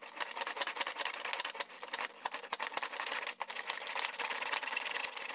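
Rapid, irregular clicking of a ratchet wrench with a 10 mm socket as a nut behind the fender liner is backed off, over a faint steady low hum.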